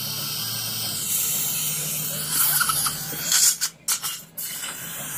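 Dental suction (saliva ejector) hissing steadily in the mouth, turning into a brief slurping sputter about halfway through and cutting out twice for a moment near the end.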